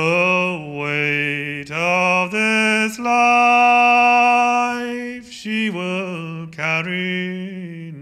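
A solo male voice singing a slow melody, stepping from note to note, with one long held note about three seconds in.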